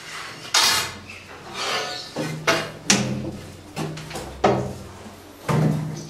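Irregular wooden knocks and bumps, about six in all, as a wooden perch pole and a wooden nest box are handled and fitted against a wall.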